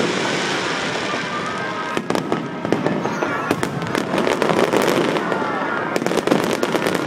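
Fireworks display going off: a fast run of sharp bangs and crackles that thickens near the end, over the voices of onlookers.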